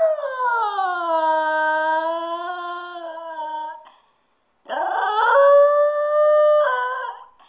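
Small white terrier howling: two long howls with a short pause between, the first sliding down in pitch at its start and then holding steady.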